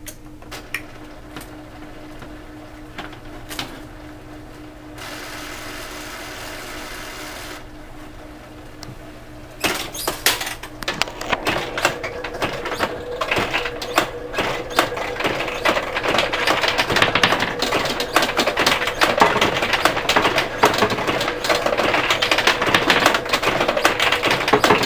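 Heiwa Bunny Girl pachinko machine playing: steel balls fired by the launch handle clatter through the pins in a dense, rapid run of clicks. It starts about ten seconds in and grows busier, with only faint scattered clicks before it.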